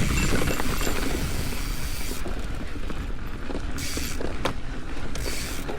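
Mountain bike riding over a rocky dirt trail: steady tyre and rolling noise, with scattered rattles and knocks from the bike.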